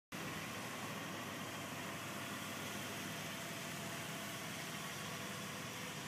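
Steady low mechanical hum over an even hiss, unchanging throughout, with no distinct events.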